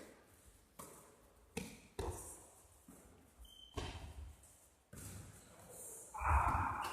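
A basketball bouncing on a gym floor: about five separate, unevenly spaced thuds that ring briefly in the hall. A louder stretch of mixed noise with a high squeak-like tone comes in near the end.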